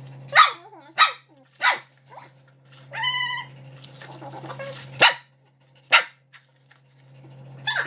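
Dog barking at food: a series of short, sharp barks with a longer, drawn-out pitched call about three seconds in.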